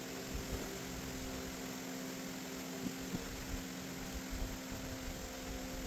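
A steady hum with a few fixed tones, and a few light clicks and taps as the outboard carburetor is handled on the bench, several of them around the middle.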